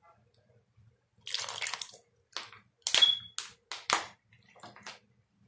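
A plastic drink bottle handled and drunk from: a short rush of noise, then a run of sharp clicks and crackles from the plastic. The loudest clicks come about three and four seconds in.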